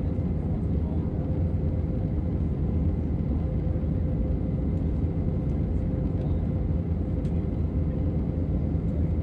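Jet airliner cabin noise in cruise: a steady low drone of engines and airflow with a faint constant hum.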